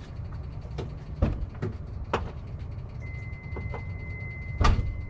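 Knocks and clicks of someone getting at a car's controls, with a loud thump near the end, over a steady low rumble. About three seconds in, a car's steady electronic warning tone begins and keeps sounding.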